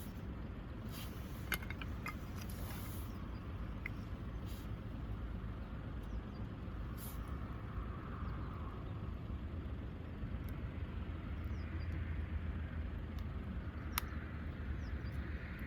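Wood campfire crackling, with a few sharp pops over a steady low rumble.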